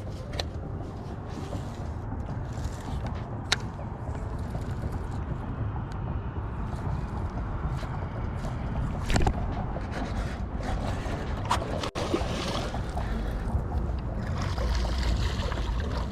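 Steady low wind and water noise around a small fishing boat, with a few sharp clicks or knocks.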